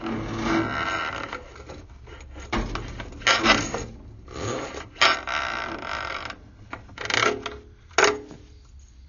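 Drain inspection camera head and push rod scraping and rubbing in the pipe as they are pulled back out, in irregular bursts with a couple of sharp knocks.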